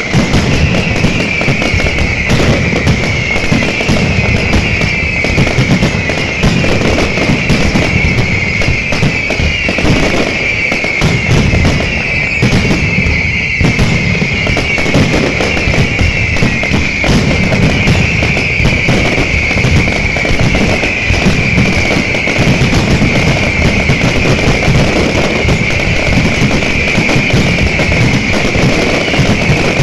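Fireworks display in a dense, continuous barrage of bangs and crackling, with a high falling tone repeating over it.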